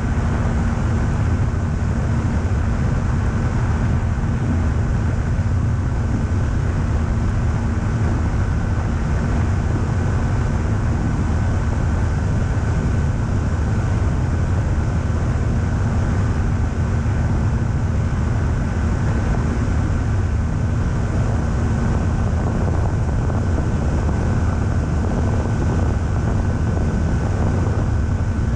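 Pipistrel Sinus motorglider's engine and propeller running steadily in flight, with wind rushing over the microphone of a wing-mounted camera. A thin steady whine sits above the low engine noise.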